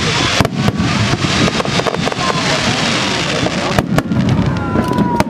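Fireworks going off in rapid succession: a dense run of bangs and crackles, with a few high whistles falling in pitch, and voices of a crowd beneath.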